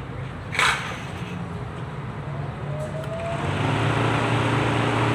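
A 660 cc car engine with a misfire running unevenly, picking up in speed and loudness in the last couple of seconds.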